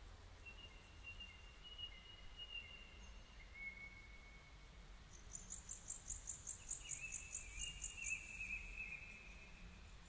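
Birds singing faintly: long, steady whistled notes held one to two seconds each at different pitches, overlapping a rapid high trill of about ten notes a second through the second half, over a low background rumble.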